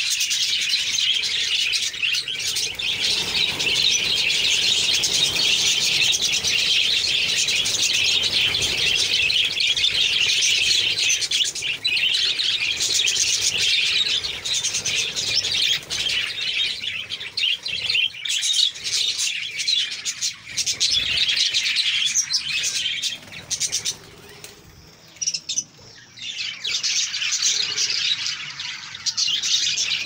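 A large flock of budgerigars chattering and chirping continuously in a dense, high-pitched warble, easing into a brief lull about three quarters of the way through before picking up again.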